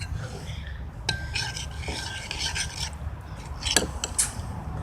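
Spoon scraping and stirring the glue-and-laundry-detergent slime mixture in a bowl, an irregular rasping, with a sharp knock about four seconds in.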